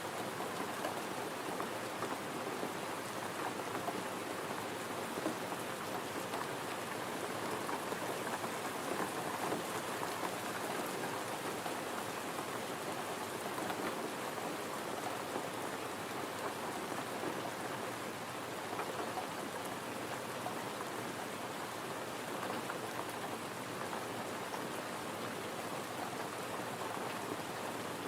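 Gentle rain falling steadily, an even hiss of drops with no change in level.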